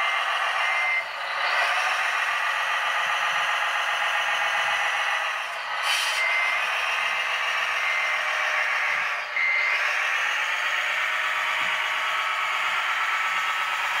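Sound module of an RC Mercedes-Benz Arocs 8x4 concrete mixer truck playing truck engine noise through a small speaker, thin with no bass. A reversing beeper pips on and off, and a short air-brake hiss comes about six seconds in.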